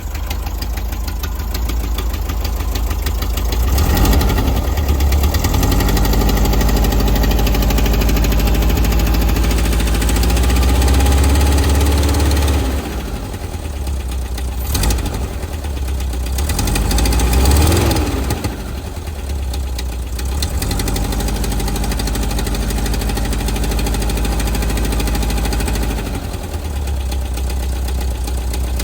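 Volkswagen Type 4 air-cooled flat-four engine running with a knock. It is revved up and held twice, with two quick blips of the throttle in between, and settles back toward idle after each.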